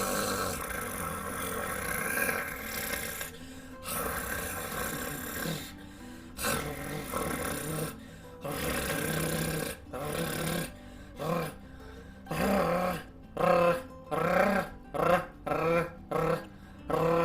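A person demonstrating how to find the tongue trill: a long forceful exhale with a snore-like rasp at the back of the tongue, then a run of short voiced rolled-r attempts as the tongue tip is moved into trilling position. The attempts come as about ten quick bursts, each under a second, closer together toward the end.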